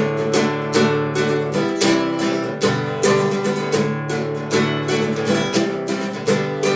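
Acoustic guitar strummed in a steady rhythm through an instrumental passage of a song, with no singing.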